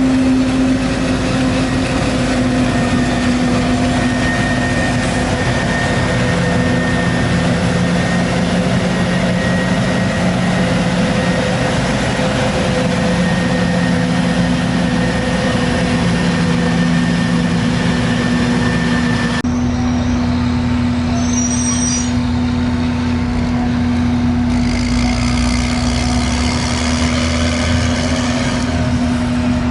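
Heavy diesel farm machinery chopping maize, a forage harvester and tractors with silage wagons, running steadily with a constant low hum. The sound changes abruptly about two-thirds of the way through, losing much of its hiss.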